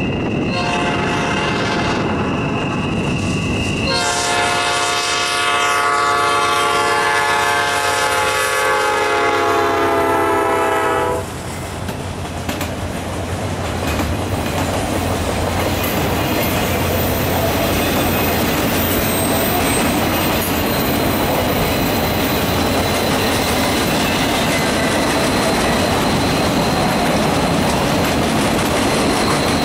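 Diesel locomotive air horn sounding as a GE Dash 9-40CW approaches: a few short sounds, then one long blast that cuts off about eleven seconds in. After that the train passes with a steady rumble and clatter of freight wheels over the rails as a long string of flatcars rolls by.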